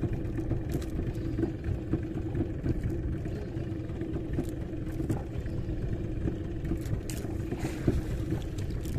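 Boat engine running steadily, a constant low hum with a few light knocks and clatters over it.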